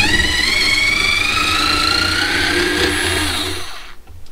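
Cheap cordless electric screwdriver running in reverse, backing a screw out of a pressure-treated 2x4 stud. The motor and gearbox whine starts suddenly, rises gradually in pitch, then stops about four seconds in.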